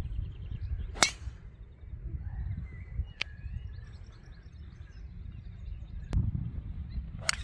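A golf driver striking a teed ball: one sharp crack about a second in, followed later by a few fainter clicks, over a steady low rumble.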